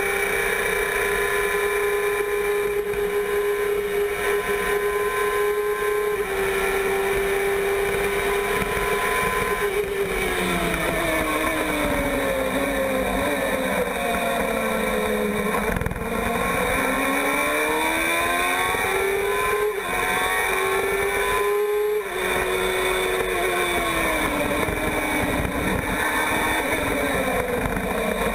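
Onboard engine note of a Formula 1000 car's 1000 cc motorcycle engine. It holds a high, steady pitch at full throttle on the straight, then falls away under braking and downshifts. It climbs again as the car accelerates out of the corner, breaks briefly at a gearshift about 22 seconds in, falls once more for the next turn, and starts to rise near the end.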